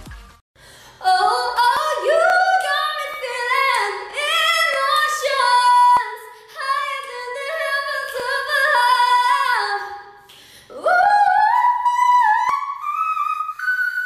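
A high-pitched solo singing voice, in one long phrase of stepping and gliding notes, then after a short break about ten seconds in, a second phrase that slides upward to a high held note near the end.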